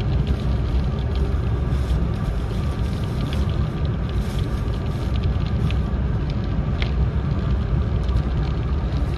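Steady low rumble of a JR East E4 series Max double-decker Shinkansen running, heard from inside the passenger cabin, with scattered light ticks and creaks.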